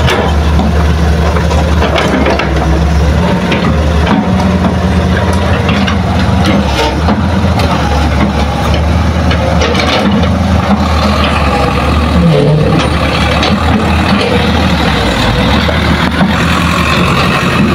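Diesel engines of a Hitachi hydraulic excavator and a small Isuzu dump truck running steadily, with scattered knocks and clatter as soil and rocks drop from the excavator bucket into the truck's steel bed.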